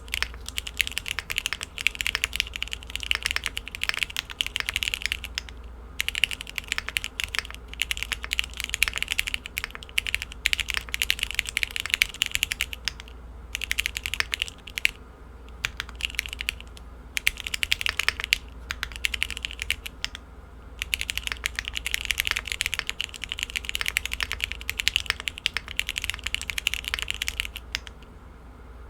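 Fast typing on a 65% top-mount custom mechanical keyboard with a polypropylene plate and lubed Cherry MX1A Black linear switches, a dense patter of key clacks. It goes in runs of several seconds with brief pauses, and stops near the end.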